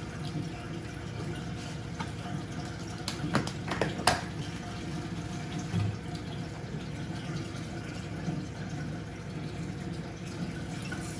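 Steady trickle and splash of running aquarium filter water, with a few sharp clicks about three to four seconds in as the feeder and food tub are handled.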